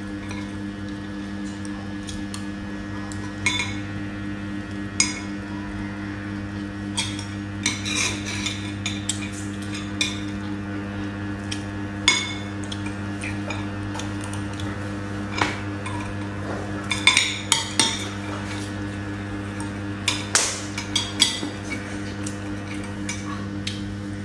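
Spoons and forks clinking and scraping on ceramic plates and bowls during a meal. The clinks come irregularly, thickest a little past the middle, over a steady low hum.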